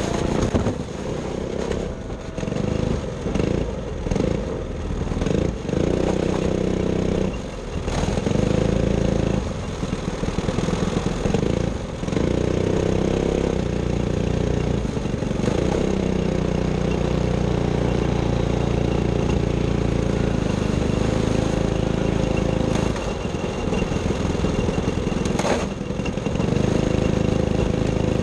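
Racing kart engine revving in short, broken bursts for the first several seconds as the kart comes out of the gravel trap and back onto the track, then running steadily under power. A single sharp click comes a few seconds before the end.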